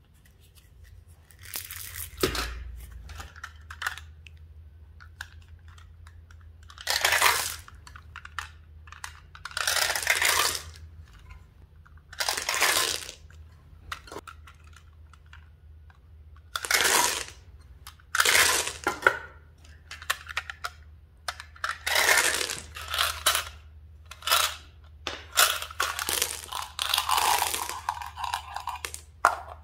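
M&M's candies rattling out of small plastic containers in about a dozen short pours, each lasting a second or less, falling onto slime and other candies. There is a sharp click about two seconds in.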